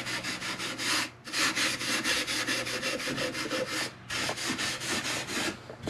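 Hand-held abrasive pad rubbed back and forth over sealed cedar boards: quick, even scratchy strokes, about five or six a second, with two short pauses, the first about a second in and the second about four seconds in. A faint steady low hum runs underneath.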